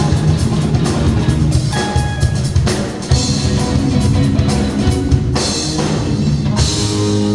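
Live rock band playing: a drum kit with repeated cymbal crashes over electric guitars and bass. Near the end a chord is held.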